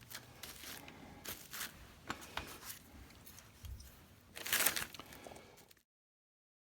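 Faint rustling and scratching of hands pressing and smoothing Velcro loop fabric down onto a surface tacky with spray adhesive, with a louder rasp about four and a half seconds in. The sound drops out entirely near the end.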